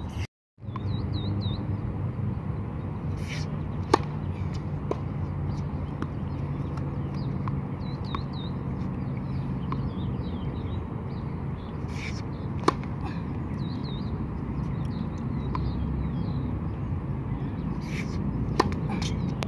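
Tennis serves: a racket strikes the ball with a sharp crack three times, about four seconds in, near the middle and near the end, with lighter ticks of the ball bounced on the hard court in between. Birds chirp repeatedly over a steady low background rumble.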